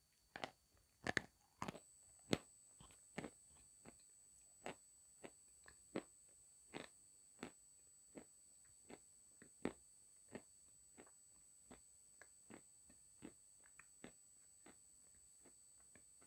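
Close-miked crunching bites and chewing of a hard white lump: a few loud crunches in the first two seconds, then steady crunchy chews about once or twice a second that grow softer toward the end.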